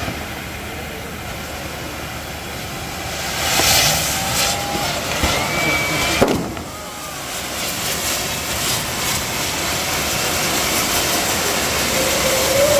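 Kambam, a tall firework tower of fountain fireworks, burning: a steady jet-like rushing hiss of spraying sparks with crackling. It swells about three and a half seconds in, and one sharp bang comes about six seconds in. A few short whistling glides rise over the rush.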